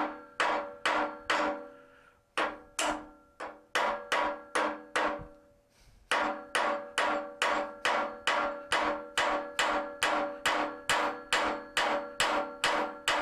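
Ball-peen hammer striking a cold steel rivet on a railroad-track anvil, each blow a sharp ringing clink, about three blows a second, with two short pauses in the first six seconds. The rivet is being peened down cold, without heat or a rivet set, to form a head.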